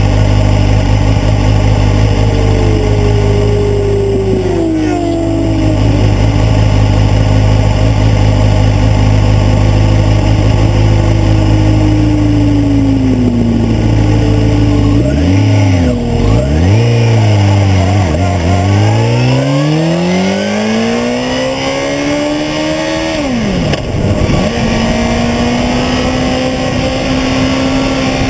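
Sport motorcycle engine idling while other motorcycles pass on the track, their pitch falling as they go by. Then the bike is blipped, pulls away and accelerates hard, with one upshift about 24 seconds in, and holds a steady engine note at speed.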